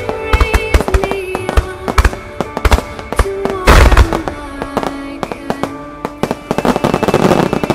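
Starmine aerial fireworks in a rapid finale barrage: many sharp shell bursts in quick succession over music played for the display. There is a dense burst of crackling about four seconds in, and a long crackling shower near the end.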